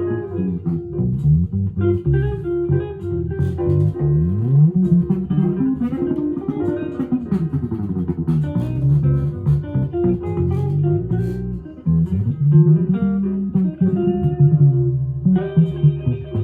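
Cort headless electric guitar strung with La Bella flatwound strings, played unaccompanied: a steady run of notes with frequent slides up and down in pitch.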